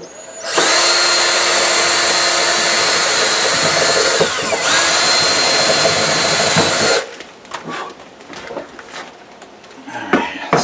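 Cordless drill boring a large bit through the wooden cabinet bottom. It runs steadily for about six seconds, slowing briefly partway through and then speeding up again. After it stops there are a few light knocks.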